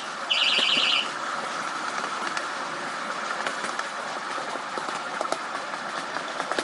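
A high electronic beep sounds twice near the start, one short and one longer and pulsing, over the steady running noise of a miniature railway train's wheels on the track, with light clicks as it crosses rail joints and points.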